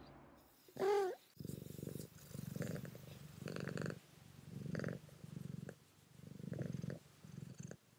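A domestic cat meows once, briefly, then purrs in rhythmic pulses that swell and fade with each breath.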